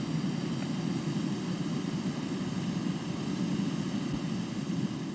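Gas stove burner running with a steady low rumble of flame under a drink can that is heating water toward the boil.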